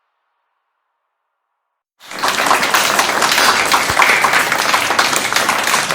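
Silence, then about two seconds in a crowd starts applauding, many hands clapping at once.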